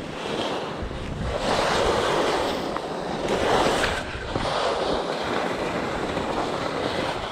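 Wind buffeting a GoPro's microphone: a rushing noise that swells in two gusts, about a second and a half in and again near the middle.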